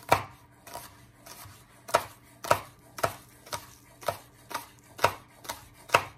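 Kitchen knife slicing a green onion into small rounds on a wooden cutting board: a steady run of crisp knocks on the board, about two a second.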